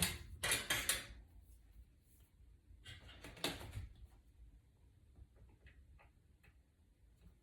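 Hands and small tools working on a tablet: short bursts of rustling and scraping in the first second and again about three seconds in, then a few light ticks and taps.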